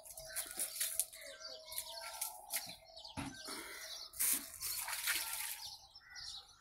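Water poured from a container onto the soil of a grave, splashing in uneven spurts, the heaviest just after the middle.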